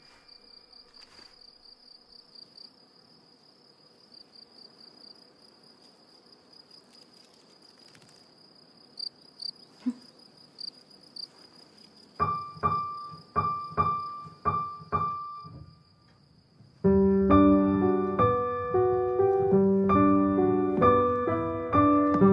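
Quiet first half with a faint steady high insect trill. About twelve seconds in, a piano strikes one high note about five times in a row, stops briefly, then plays a melody in chords.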